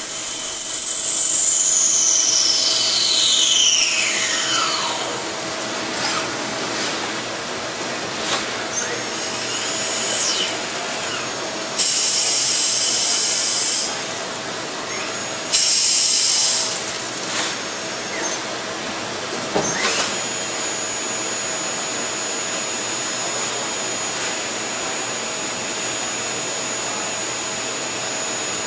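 Hardinge T42 CNC lathe running under a steady machine hum. High whines fall in pitch over the first few seconds, and two loud bursts of hissing come about twelve and fifteen seconds in. About twenty seconds in, a whine rises sharply in pitch and then holds as a steady high tone.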